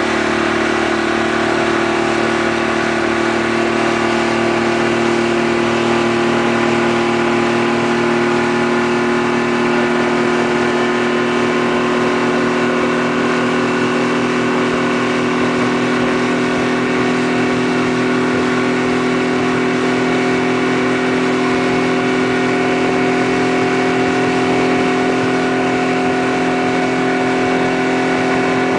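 Motorboat engine running steadily at speed while towing a tube, a constant hum that does not change pitch, with the rush of the boat's wake water under it.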